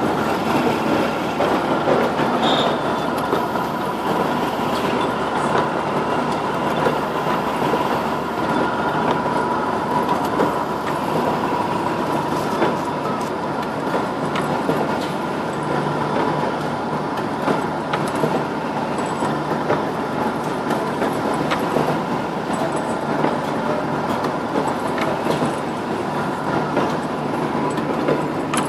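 Automatic CFL tube wiping and brushing machine running: a steady mechanical din with dense rattling and clicking, over a steady high whine.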